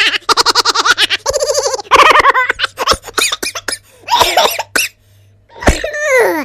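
People laughing in repeated bursts, like a laugh track, with a voice sliding down in pitch near the end.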